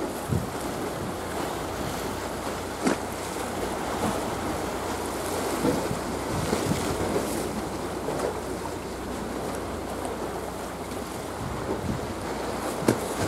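Wind buffeting the microphone over a steady wash of sea and waves, with a sharp click about three seconds in and another near the end.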